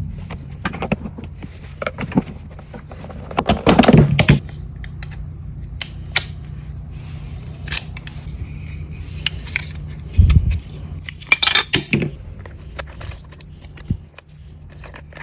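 Hard plastic clicks, clacks and light rattles of a 3D-printed Packout latch and case parts being handled and snapped into place, with a heavier thud about ten seconds in. A steady low hum runs underneath.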